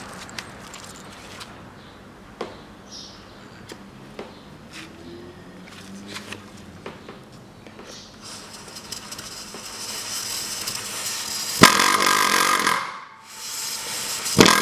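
Faint clicks and scrapes as a pneumatic valve-lapping tool is set on a valve coated with lapping paste. After about 8 seconds air hiss builds, and from about 12 seconds the air-driven lapper runs loudly with a steady buzzing tone, lapping the valve into its seat. It cuts out for about a second and starts again at the end.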